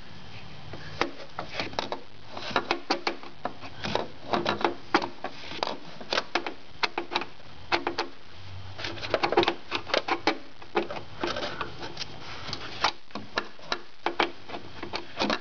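Hand screwdriver with a Torx bit being turned on the headlight assembly's retaining bolt to loosen it, making a run of irregular clicks and ticks.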